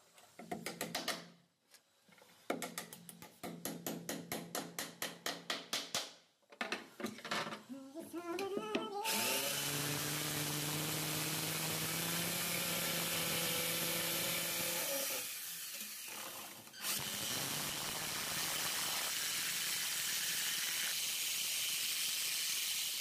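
A quick run of hammer blows on a wooden frame strip, about four a second. Then an electric drill spins up with a rising whine and runs steadily, drilling into the wall, stopping briefly partway through before drilling on.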